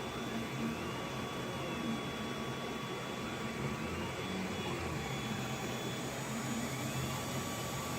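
Anet A8 3D printer running mid-print: a steady whir of its cooling fans, with the stepper motors whining in pitch glides that rise and fall every second or two as the print head moves.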